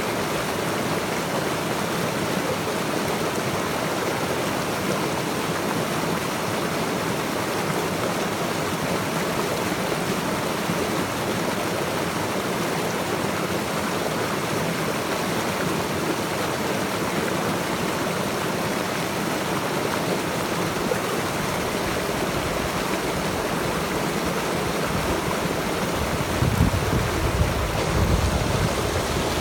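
Running water of a stream, a steady rushing wash with no change. A few louder low rumbles come in near the end.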